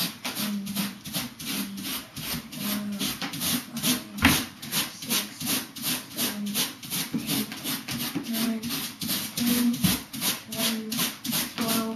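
Rubber balloon rubbed quickly back and forth on a boy's hair: an even, scratchy swishing of about four strokes a second that builds a static charge on the balloon. One louder bump about four seconds in.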